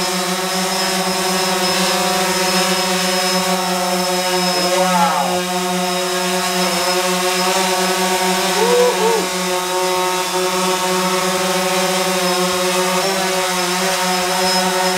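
DJI Phantom 4 Pro quadcopter's four motors and propellers running at hover with a steady, strong buzz, the pitch briefly rising and falling a few times as the motors adjust.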